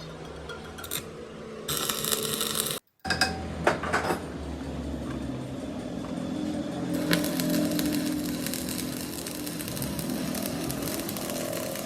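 A power tool works on metal: a short, hissy burst, a sudden cut, a few sharp clicks, then a steady machine running with a low hum from about the middle on.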